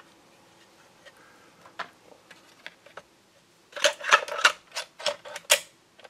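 Plastic clicks and taps from a Darex Drill Doctor 750SP drill-bit chuck being handled and lined up in the sharpener's port. A few faint ticks come first, then a quick run of about a dozen sharp clicks in the second half.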